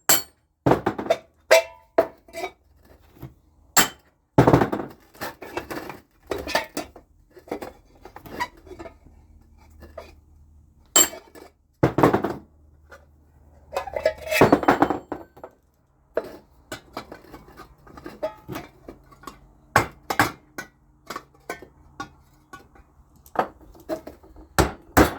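Irregular hammer strikes clinking on a kidney bean tin can, widening a punched hole so the exhaust pipe can fit into it, with a few longer scraping rattles among the blows.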